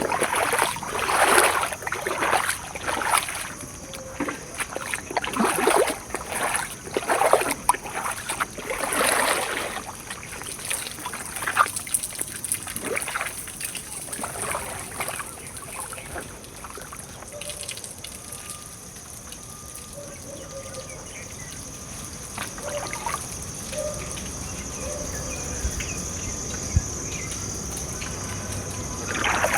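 Water splashing in irregular bursts for about the first ten seconds, then settling into quieter trickling under a steady hiss.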